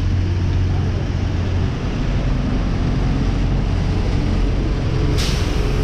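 Street traffic noise with a steady low rumble, and a short sharp hiss about five seconds in.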